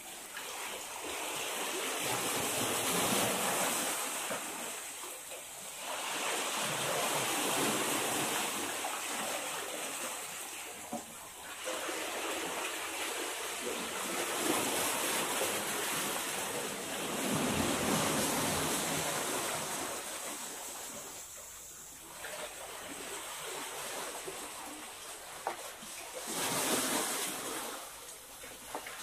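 Sea waves surging up a narrow rocky sea-cave channel and draining back. The rushing hiss swells and fades every several seconds.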